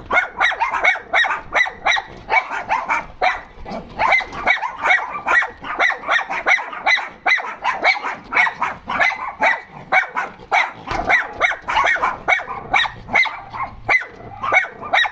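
Dogs barking nonstop in a rapid run of short, high barks, about three to four a second.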